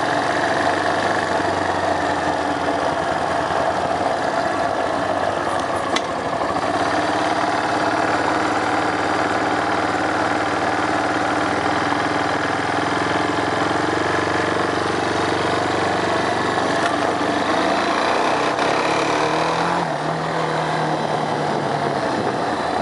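1999 Kawasaki Bayou 220 ATV's single-cylinder four-stroke engine running steadily while riding in third gear.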